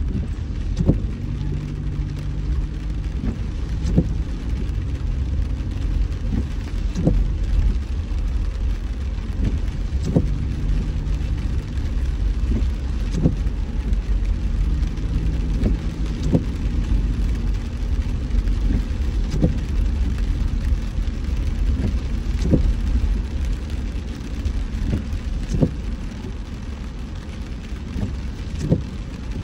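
A car driving in rain, with steady road rumble under rain noise and a short knock about every second and a half.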